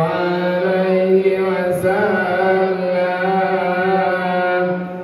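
A man's voice chanting selawat, devotional praise of the Prophet Muhammad, in long held notes that waver slowly in pitch, with a short pause for breath near the end.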